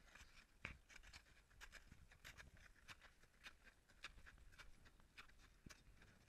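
Faint footsteps of crampon-shod boots on glacier ice: quick, irregular crunches and clicks as the steel spikes bite into the ice.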